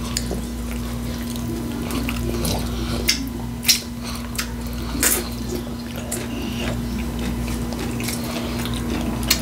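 Close-miked eating sounds: a person chewing a taco salad, with sharp wet mouth clicks and smacks every second or so, over a steady low electrical hum.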